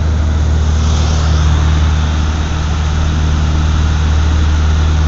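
Propeller aircraft's wing-mounted engine and propeller droning steadily, heard from inside the cabin, with a deep, even hum under a constant rush of air.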